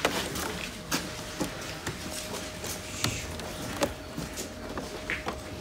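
Wooden and glazed picture frames knocking and clacking together as they are handled and shifted by hand: a few scattered knocks over a faint steady tone.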